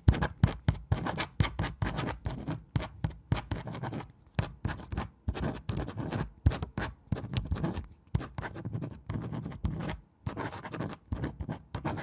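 Pencil scratching across paper in quick, irregular strokes, as in drawing or writing, with a few brief pauses.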